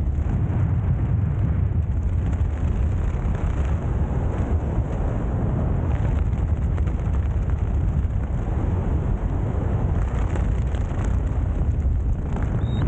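Steady wind rush buffeting a helmet-mounted camera's microphone during flight under an open parachute canopy, a low rumble with no let-up.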